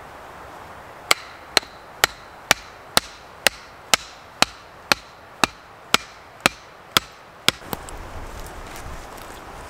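A hatchet pounding the top of a wooden stake to drive it into the ground: about fourteen sharp, evenly paced knocks, roughly two a second. They stop about two-thirds of the way in, and a low rumbling noise follows.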